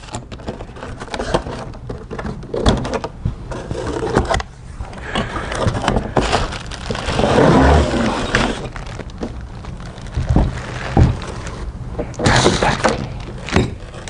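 Unboxing handling noise: cardboard box flaps pulled open and torn, and plastic wrapping crinkling around the scooter parts as they are lifted out, densest midway through. Near the end come a few dull knocks as the wrapped parts are set down on the table.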